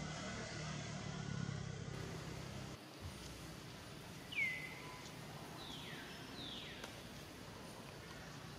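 A steady low engine hum for the first few seconds that cuts off abruptly, then a faint outdoor background with three short, high calls, each falling in pitch. The first call, about halfway through, is the loudest.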